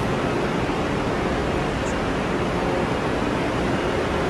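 Steady rushing hum of a stationary Talgo high-speed train's air-conditioning and cooling fans, with faint steady tones beneath the noise.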